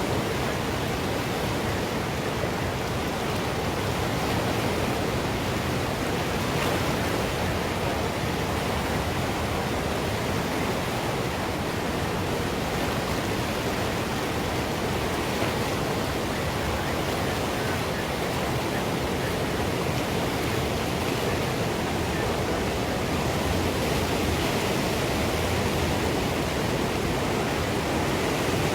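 Swollen creek in flood: fast floodwater rushing with a steady, even roar.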